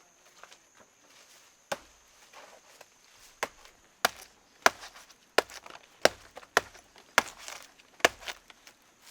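Repeated chopping strikes of a blade biting into wood or a plant stalk, about nine sharp blows. A single blow comes nearly two seconds in, then the blows follow at a steady pace of about one every half-second or so.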